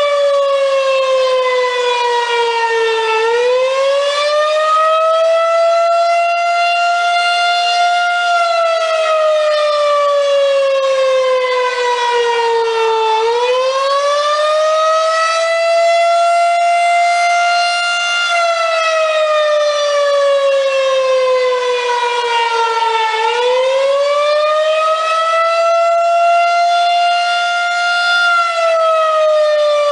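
Federal Signal 2001-130 single-tone electromechanical outdoor warning siren sounding on test, wailing: its loud tone rises quickly, holds, then slides slowly back down, in a cycle about every ten seconds.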